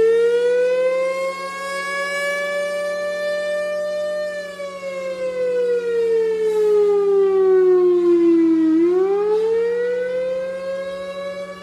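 Cold War–era Federal Signal Thunderbolt air raid siren sounding as its head rotates. The tone climbs to a peak, slides down for about four seconds, then winds back up near the end, over a steady low hum.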